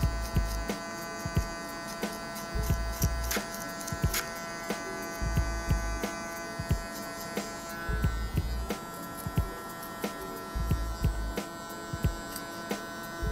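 Cordless hair clipper buzzing steadily as it cuts short hair on the side of the head, blending a fade. Background music with a steady beat runs under it.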